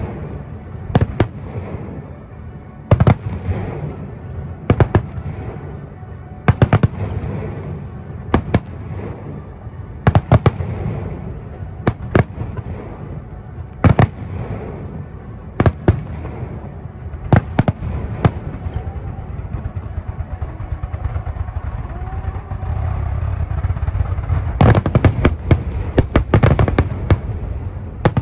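Aerial firework shells bursting in sharp bangs about every one to two seconds over a low rumble. Near the end they come in a rapid, dense volley of many bangs.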